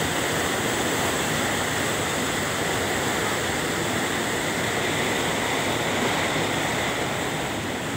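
Fast, muddy white water rushing and churning through a concrete channel: a steady, loud rush with no let-up.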